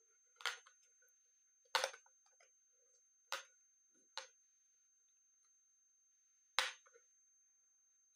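Five short, sharp clicks, irregularly spaced, from slime and its plastic container being handled.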